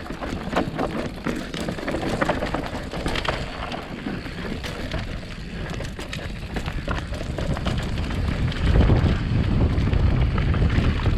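Mountain bike riding down a dirt trail: tyres on dirt with frequent rattles and knocks over rough ground, and wind rushing on the microphone, the rumble getting louder about eight seconds in.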